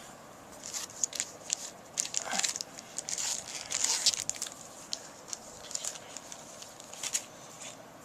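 Foil wrapper of a Magic: The Gathering booster pack being torn open and crinkled, with crackling and rustling that is busiest in the middle.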